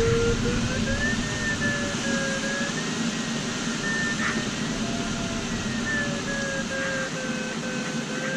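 Glider cockpit: a steady rush of airflow over the canopy, with the electronic variometer's audio tone sliding slowly up and down in pitch as the climb or sink rate changes.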